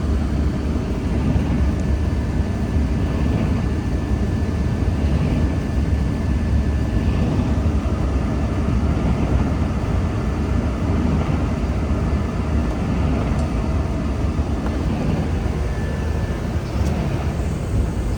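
Car driving at highway speed on wet pavement, heard from inside the cabin: a steady deep rumble of tyre and road noise with a hiss of spray.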